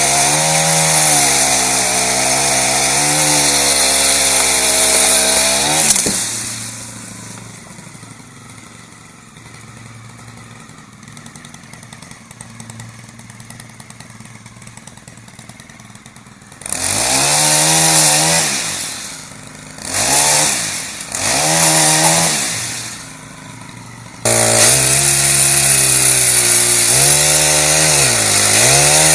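Gas chainsaw cutting a tree limb at full throttle, its pitch wavering under load, then dropping to idle about six seconds in. After about ten seconds of idling it is revved in three short blips, and near the end it goes back to full throttle cutting.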